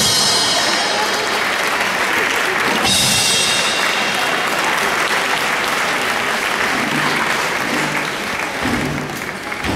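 A large audience applauding, with music playing over it and two sudden crashes, one at the start and one about three seconds in.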